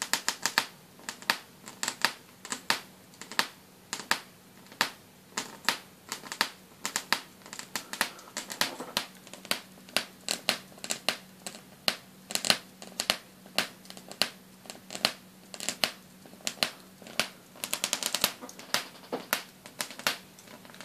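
Jacob's ladder traveling arc driven by a ZVS high-voltage driver: irregular sharp crackling snaps, several a second, over a faint steady hum. The snaps come in quicker runs twice, about eight seconds in and again near the end.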